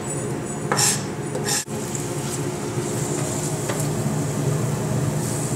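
Diced red bell pepper sizzling in hot oil in a stainless steel sauté pan as it is stirred, a steady frying hiss. In the first couple of seconds there are two short scrapes as the last pieces are pushed off the cutting board with a knife.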